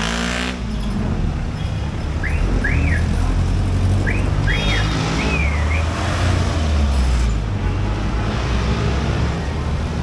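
Passing jeepneys' diesel engines and street traffic making a steady low rumble, with a vehicle's engine note falling in pitch as it goes by at the start. A few short rising-and-falling high chirps sound between about two and five seconds in.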